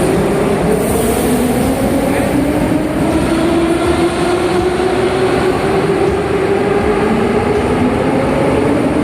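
Metro train accelerating along the platform: several steady motor tones slowly rise in pitch over a loud rumble of wheels on rails.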